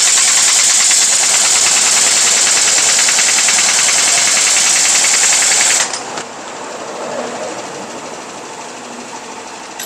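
Pneumatic impact wrench hammering on a truck wheel's lug nut, a loud, fast rattle that stops abruptly about six seconds in.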